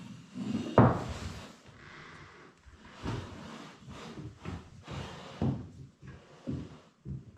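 A series of knocks and thuds from objects being handled and set down. One loud thump comes about a second in, followed by several lighter knocks.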